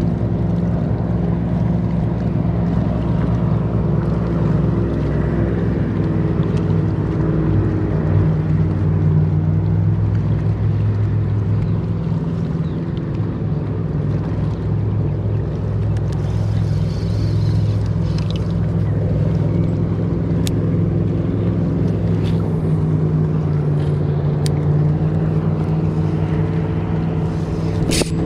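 Outboard motor on a bass boat running steadily at speed, its pitch holding even throughout.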